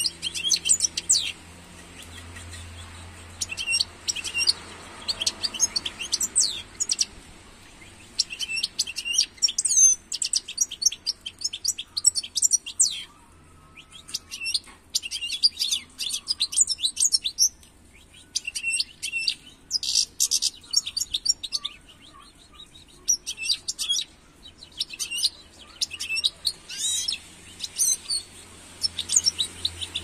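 European goldfinch singing: rapid high twittering phrases, each one to two seconds long, with short pauses between them.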